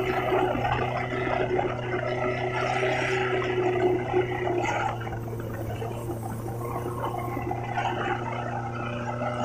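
Thai longtail boat engine running steadily at an even speed, a low, rough drone.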